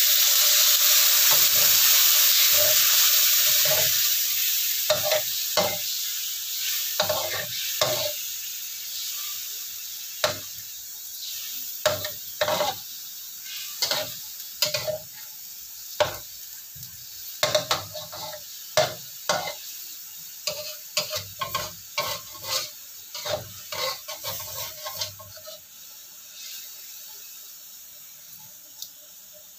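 Coconut milk poured into a hot wok of fried beef sizzles loudly, the sizzle fading over the first few seconds. Then a spatula stirs the simmering curry, knocking and scraping against the wok in many short clinks, before it goes quieter near the end.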